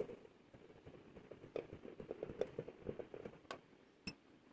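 Gloved hands handling a brass bowl: faint rustling of gloves and cloth with a few light clicks and taps, the last one, near the end, giving a brief high ring.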